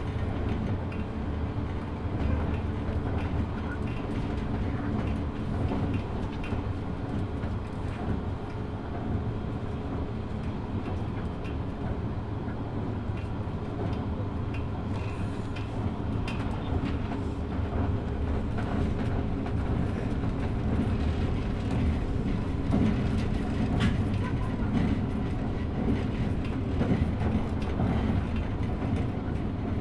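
Running sound inside a JNR 183-series electric train's motor car (MoHa 182): a steady rumble of wheels and MT54 traction motors under the floor, with a few clicks over rail joints.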